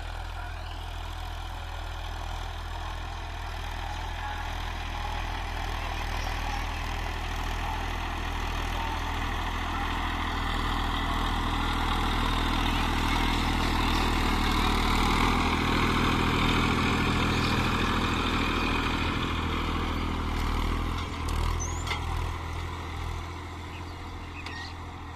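Massey Ferguson 241 DI tractor's three-cylinder diesel engine running steadily as it pulls a cultivator through tilled soil. It grows louder in the middle as the tractor passes close, then fades over the last few seconds as it moves away.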